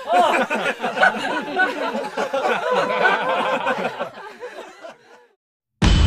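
Several people laughing and snickering together without words, fading out about five seconds in. Just before the end, loud intro music with a heavy low boom cuts in.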